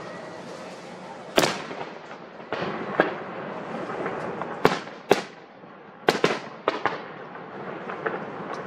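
Aerial fireworks shells bursting: a string of sharp booms at irregular intervals, the first loud one about a second and a half in and several in quick succession around six to seven seconds, each with a short echoing tail.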